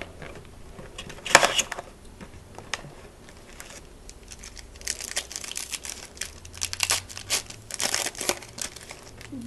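A trading card pack's wrapper being torn open with one loud rip about a second in, then crinkled and handled in bursts of crackling over the last few seconds.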